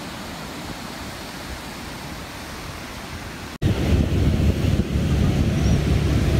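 Ocean surf washing on a beach, a steady hiss. About three and a half seconds in it breaks off suddenly, and louder wind buffets the phone's microphone with a low rumble.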